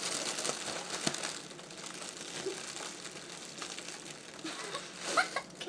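Crinkling and crumpling of a helium balloon being squeezed in the hands to push the gas out through a small hole.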